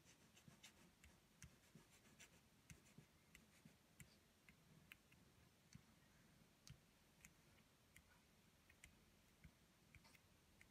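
Faint, irregular ticks and scratches of a beeswax crayon being stroked across paper, barely above near silence.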